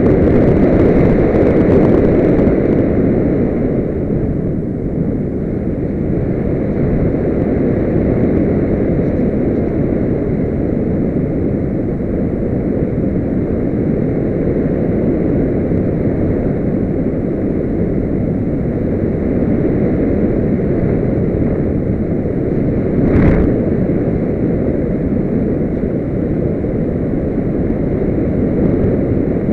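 Steady wind rush of air streaming past the onboard camera of a Multiplex Solius RC glider in flight, with one short knock about 23 seconds in.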